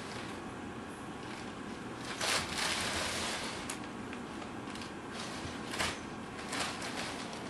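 Crumpled brown packing paper crinkling and rustling as kittens pounce and scramble through it: a longer rustle a little over two seconds in, then a few short ones.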